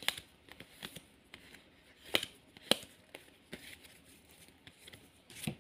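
Tarot cards being handled and leafed through while a card is looked for: soft rustling with a few sharp snaps.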